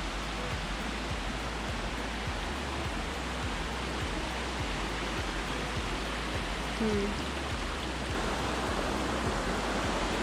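A steady, even rushing hiss outdoors, with a brief low voice-like sound about seven seconds in.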